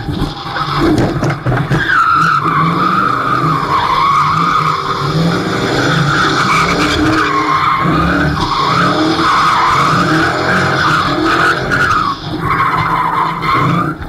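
Drift car's tyres squealing in a long, wavering squeal as the car slides sideways, with the engine revving underneath. The squeal breaks off briefly about twelve seconds in, then returns.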